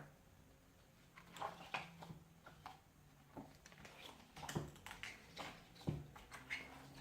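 A dozen or so light clicks and taps at irregular intervals, like small objects being handled at a desk, over a faint steady room hum.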